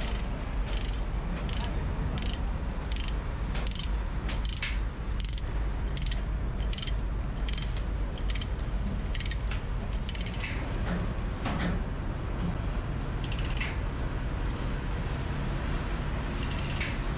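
Heavy machinery clanking: repeated sharp metallic clicks and knocks, several a second early and sparser later, over a steady low rumble.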